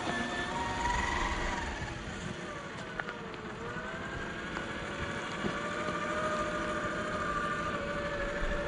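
Electric motor and gearbox of a Traxxas TRX-4 RC crawler whining as it climbs a dirt slope, the pitch falling and rising with the throttle, with a dip about three and a half seconds in. Under it is a low rumble of tyres and ground noise, and there is one sharp click near the middle.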